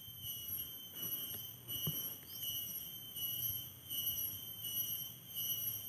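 Chorus of insects in the field, shrilling steadily at several high pitches at once, pulsing about once a second.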